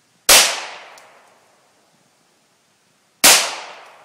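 Two gunshots about three seconds apart, each a sharp crack that trails off over about a second.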